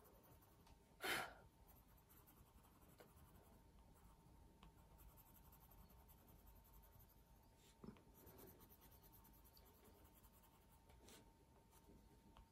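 Faint strokes of a coloured pencil shading on cartridge drawing paper, with one brief louder rustle about a second in.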